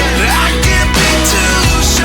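Background pop song with a steady beat and sustained bass, an instrumental stretch between sung lines.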